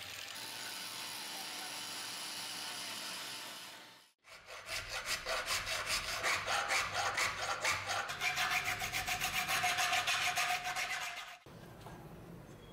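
An angle grinder's abrasive disc grinding the steel axe head, a steady whirring grind widening the crack, which stops abruptly about four seconds in. Then a hand file rasping back and forth across the steel head, about three strokes a second, and quieter handling with a rag near the end.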